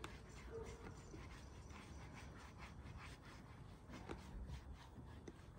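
Faint, irregular scratchy strokes of a paintbrush working brown paint onto the rough side of a wooden log stump.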